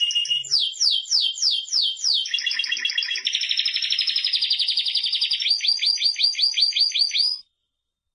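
Spanish Timbrado canary singing: a run of quick downward-sweeping whistles, then a fast, even trill, then a series of sharp repeated chirps. The song cuts off suddenly near the end.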